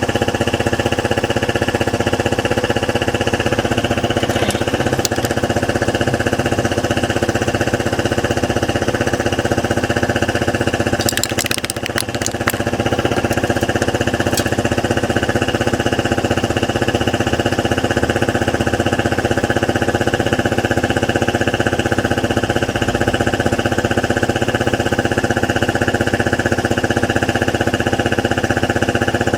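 125 cc Piaggio Skipper scooter engine idling steadily through its exhaust, with a few sharp clicks about eleven seconds in.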